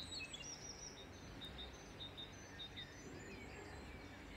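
Faint chirping of small birds: a few quick chirps at first, then a run of short, even notes in the middle, over a low background hum.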